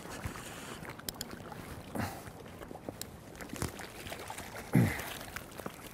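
Splashing of a hooked rainbow trout being drawn into a landing net in shallow river water, with a few short splashes and knocks.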